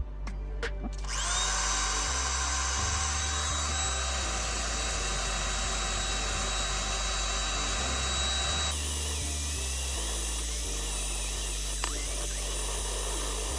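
A high-pitched power tool running steadily. It starts about a second in, and its sound changes about nine seconds in.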